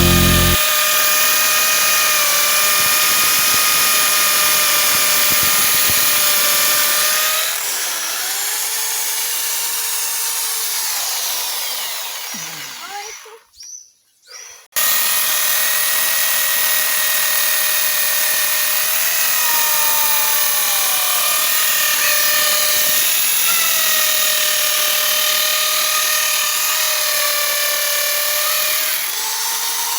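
Electric power tool motor whining steadily, its pitch sagging each time it bites under load. Just before halfway it winds down and cuts out for a second or two, then runs again.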